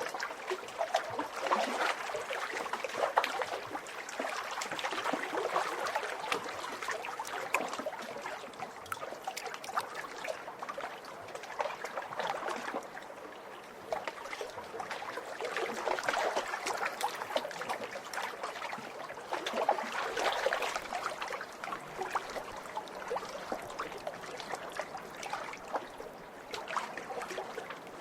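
Small waves lapping and splashing on a lake shore, with many quick little splashes over a steady wash of water that swells and eases every few seconds.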